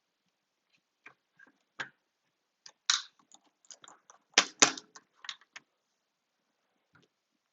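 Scattered sharp clicks and taps of small precision tools and phone parts being handled on a work mat, with the loudest few knocks close together around the middle.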